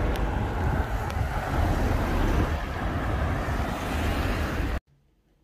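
Street traffic noise: a steady, heavy low rumble of road vehicles. It cuts off suddenly near the end.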